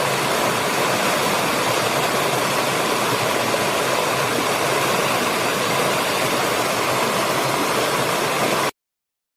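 Waterfall, a steady rush of falling water that cuts off abruptly near the end.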